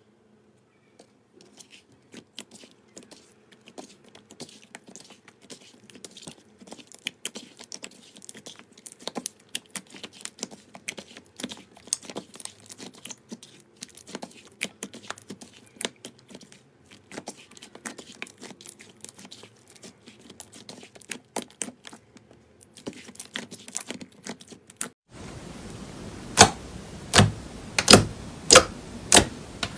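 Slime being squished and pressed by hand, giving a long run of small wet clicks and crackles. Near the end, fingertips poke into a thick glossy slime, making about five loud pops in quick succession over a steady hiss.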